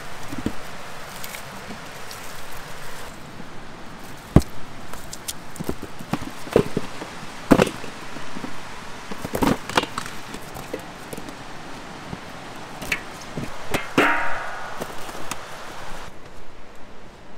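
Irregular sharp knocks and clatter, like things being handled and set down, over a steady hiss. A short pitched sound with several tones comes in about fourteen seconds in.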